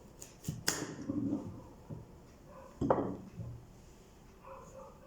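Kitchen knocks and clatters from knife work on vegetables: a few sharp strikes, the loudest just under a second in and about three seconds in, each ringing briefly.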